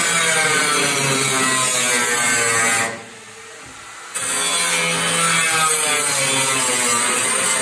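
Corded angle grinder cutting through car-body sheet metal, a steady loud whine and grinding. It drops away for about a second around three seconds in, then starts again abruptly.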